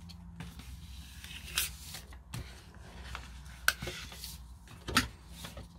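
A folded paper airplane being handled and turned over on a cutting mat: soft paper rustling with a few short crinkles, about a second and a half, three and a half and five seconds in, over a faint low hum.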